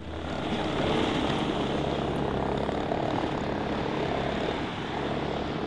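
Compact track loader's diesel engine running steadily as the machine drives off across dirt, a constant engine drone that swells in the first second and then holds.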